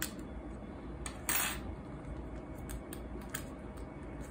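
Light clicks and taps of a thin spatula against a small metal tin of black powder and the mixing plate, as the powder is tapped out for black urushi. A brief scrape comes about a second in.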